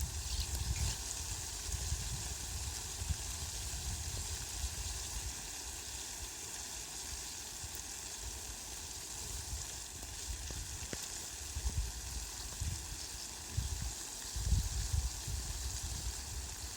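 Heavy rain falling on leafy plants: a steady, even hiss of drops. Irregular low rumbles come and go, strongest near the end.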